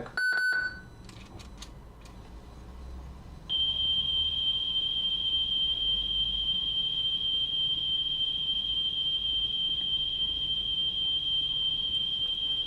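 A few mechanical clicks as the Sony WM-FX491 cassette Walkman is switched from reverse to forward playback, then, about three and a half seconds in, a steady high test tone of about 3 kHz from the test tape comes from the external speaker and holds unchanged.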